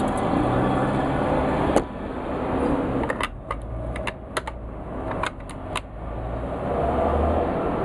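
Metal clicks from the action of an IZh-27 over-under shotgun as it is handled and its barrels are taken off the receiver. There is one sharp click about two seconds in, then a run of about eight light clicks over the next few seconds, over a steady background rumble.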